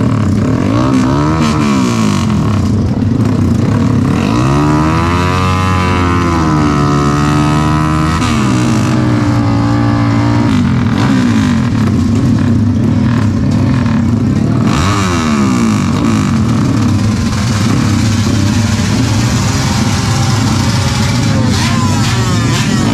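Several race-tuned underbone motorcycle engines idling and being revved, their pitch rising and falling over and over, with the longest rev about five seconds in.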